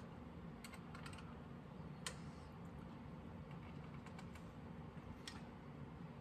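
Faint, irregular light clicks and taps of small metal parts and tools being handled, about a dozen scattered through, the sharpest about two seconds in, over a low steady background hum.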